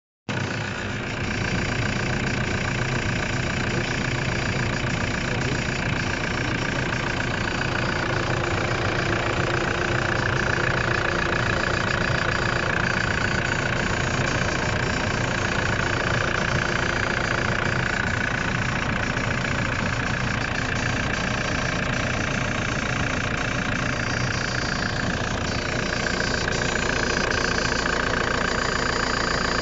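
Car engine idling, heard in the engine bay with an unfamiliar noise from around the brake master cylinder, a spot that is also leaking brake fluid. A higher tone wavers over the steady engine sound.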